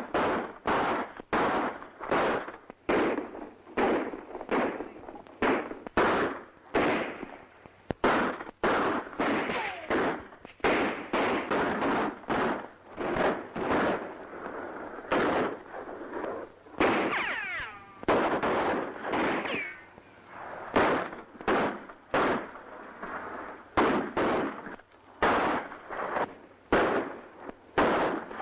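A gunfight: repeated gunshots, roughly one or two a second, each followed by a ringing echo. A falling whine sounds a little past halfway.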